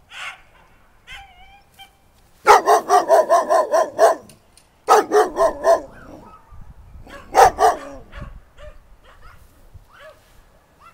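A dog barking in rapid runs: about ten quick barks, a short pause, about six more, then two or three more.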